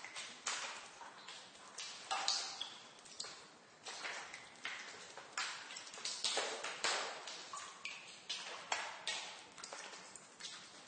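Water drops falling irregularly in a basement, each a sharp plink with a short echoing tail, several a second, some with a brief ringing pitch.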